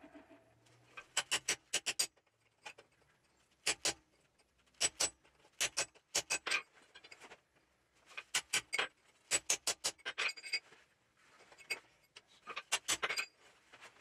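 Blacksmith's hammer striking a drift punch through a hole in hot steel bar on an anvil, in short runs of two to five quick metallic blows with pauses between, as the punched rectangular hole is drifted round.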